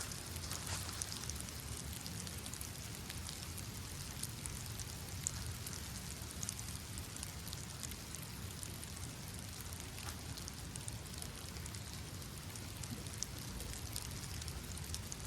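Steady rain falling, with many small drops tapping irregularly.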